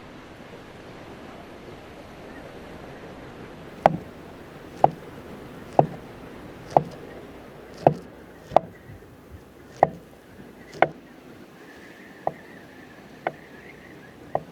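Steady wind-like hiss, then about a dozen sharp chopping knocks on wood, roughly one a second, the last few fainter.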